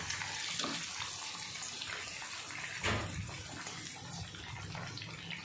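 Fish pieces deep-frying in hot oil, a steady bubbling sizzle, while a wire-mesh skimmer lifts them out of the pan. A brief knock about three seconds in.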